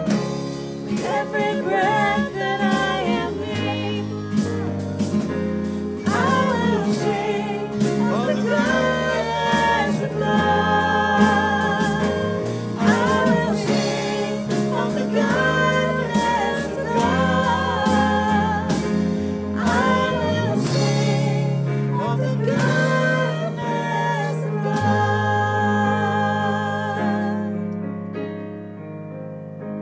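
Contemporary worship band playing: male and female voices singing over acoustic guitar, piano, bass guitar and drum kit. The singing and drums stop about 25 seconds in, and the final chord is held and fades out.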